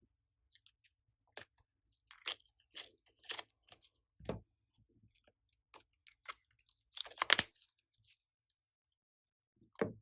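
Slime being pressed and worked by hand, giving scattered irregular crackles and pops, with a louder burst of crackling about seven seconds in.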